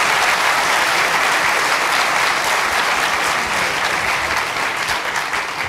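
A large conference audience applauding steadily, the clapping tailing off near the end.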